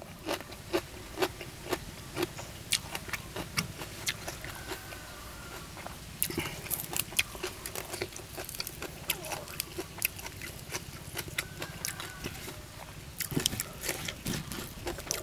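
Close-miked chewing of crunchy papaya salad and raw greens: irregular crisp crunches and wet mouth clicks, several a second.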